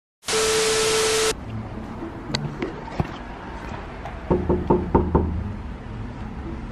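A quick run of about six knocks on a door, just past the middle, under a second in all. Before it, a loud burst of hiss with a steady tone lasts about a second.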